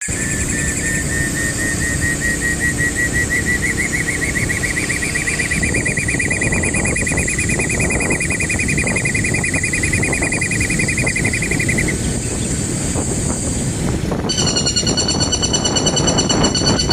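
Birds chirping in long, unbroken, high-pitched pulsing calls over a steady low rumble. One call stops about twelve seconds in, and a different, higher call with several tones starts about two seconds later.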